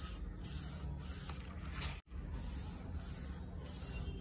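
Gloved hand rubbing a thin coat of shellac (lac and spirit) onto sanded wood veneer, a steady soft rubbing over a low background hum. The sound cuts out for an instant about halfway through.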